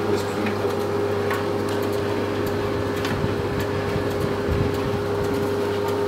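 Eudora Luftikus washer-dryer running: a steady hum with a constant whine over it and a few faint clicks.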